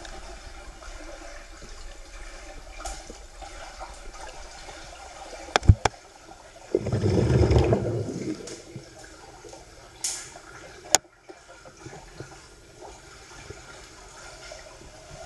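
Muffled underwater water noise in a swimming pool, heard through a submerged camera. Two sharp clicks come about five and a half seconds in, then a louder, deeper rush of water for about a second and a half, and another sharp click around eleven seconds.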